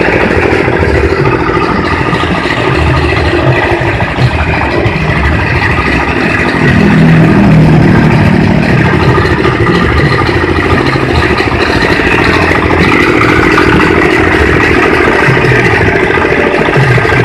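Livestock feed chopper machine running loudly, a steady engine note with clattering from the chopping mechanism; it swells briefly about seven seconds in.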